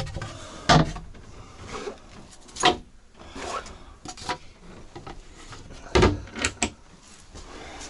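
Wooden cabinet doors and locker in a boat's cabin being handled, opened and shut by hand: several wooden knocks and clicks with rubbing and shuffling between, the loudest about a second in, near three seconds, and about six seconds in.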